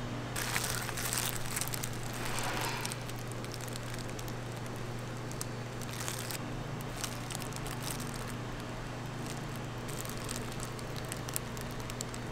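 Disposable plastic gloves crinkling and rustling as hands pull apart a cheese-filled pizza crust. The rustling is louder in the first few seconds, then gives way to fine, scattered crackles over a steady low hum.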